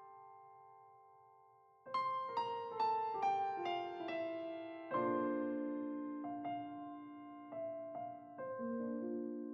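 Background piano music: after a brief lull, a descending run of single notes starts about two seconds in, followed by slower chords and scattered notes.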